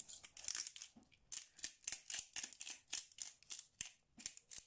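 Salt being dispensed from a hand-held salt bottle over an oiled ceramic baking dish: a run of short rasping bursts, about three a second.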